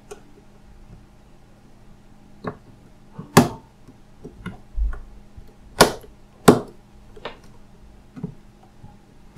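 A series of sharp clicks and taps from a mobile phone's parts being handled and pressed back together during reassembly. The three loudest clicks come around the middle. A faint steady hum runs underneath.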